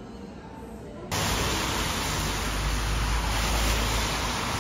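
A loud, steady, even hiss that cuts in suddenly about a second in. Before it there is a quieter stretch with faint background music.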